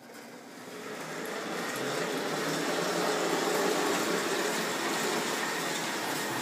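Lionel No. 1911 standard gauge electric locomotive running on tinplate track, its rebuilt motor whirring and its wheels rolling on the rails. The sound grows louder over the first two seconds and then stays steady.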